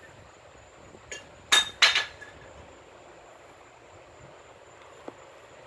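Sharp clinks of hard objects: a small one just after a second in, then two loud ones close together, with a brief ring, and a small click near the end, over a faint steady hiss and a thin high whine.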